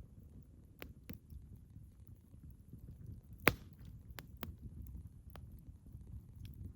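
Wood fire burning with a low steady rumble and scattered crackles, and one loud sharp pop of firewood about halfway through.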